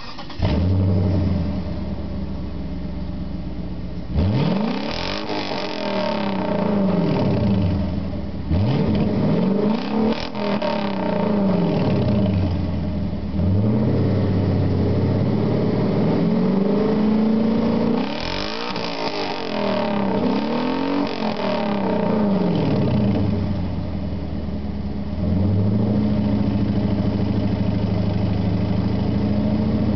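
Exhaust of a 1990 Infiniti Q45's 4.5-litre V8, its rear muffler removed and replaced by a pair of 2-inch pipes, raspy. The engine comes up loudly about half a second in and settles to an idle. It is then revved several times, pitch climbing and falling, and is held at a higher steady speed near the end.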